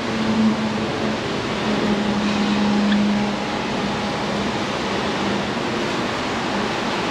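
Steady rain hissing. A low hum rises over it for a couple of seconds about two seconds in.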